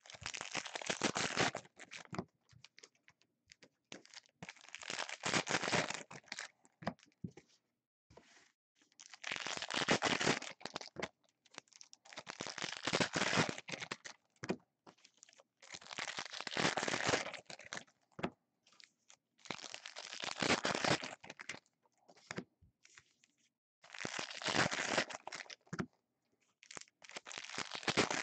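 Foil wrappers of 2016 Contenders trading card packs being torn open and crinkled, one pack after another, in about eight bursts every three to four seconds.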